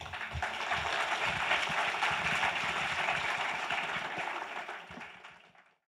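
Audience applauding, building over the first second and fading away near the end.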